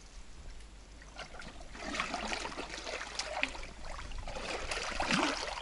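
Shallow water sloshing and splashing around a person's legs as he wades and handles a rope in the water, irregular, picking up about two seconds in and loudest near the end.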